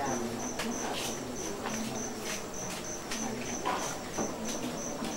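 Cricket chirping in a steady train of rapid, even, high-pitched pulses.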